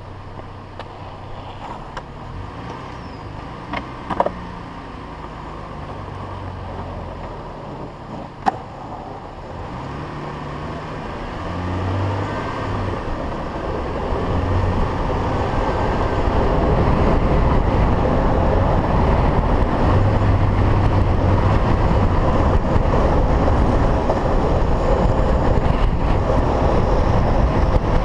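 Wind rushing over the microphone and longboard wheels rolling on asphalt during a downhill run, building steadily louder as the speed picks up. A couple of sharp clicks are heard in the first half.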